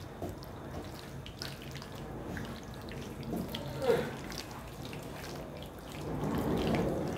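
Diced raw chicken sizzling in a frying pan as a wooden spatula stirs it, scraping and knocking against the pan. A short squeak about four seconds in is the loudest moment.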